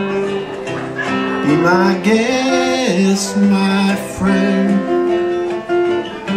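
Acoustic guitar played live, strummed chords ringing through a song.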